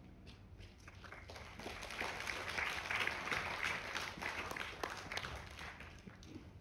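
Audience applauding at the end of a solo piano performance: the clapping starts about a second in, swells to its loudest in the middle and thins out toward the end.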